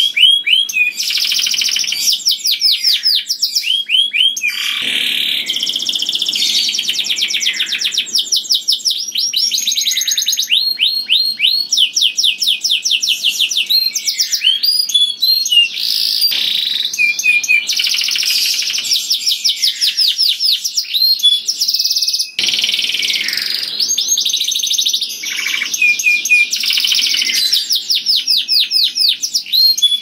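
Canary singing a loud, continuous song of fast trills: runs of rapid repeated notes, one phrase after another, with only brief breaks.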